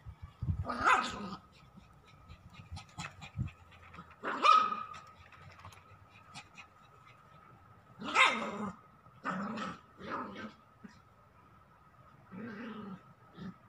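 Small white fluffy dog barking, about six barks spaced a few seconds apart, with three coming close together past the middle.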